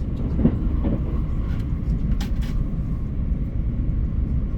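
A train running on the track: a steady low rumble, with a few brief clicks about two seconds in.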